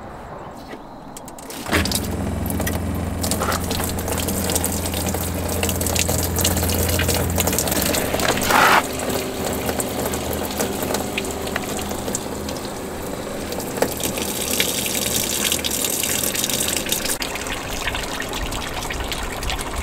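An RV's fresh-water pump runs with a steady low hum, starting about two seconds in. Water streams out of the opened low-point drains and splashes into the bay below as the pump pushes the last water out of the plumbing for winterizing.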